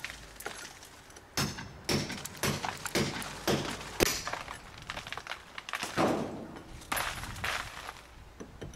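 Club hammer striking a bolster chisel held against a brick, a run of sharp metal-on-metal blows about two a second, as the drilled-out damaged brick is chopped out of the wall in small pieces.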